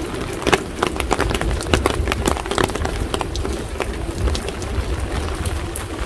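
Rain on a city street: irregular sharp taps and drips over a steady wash of rain noise, with a constant low rumble underneath.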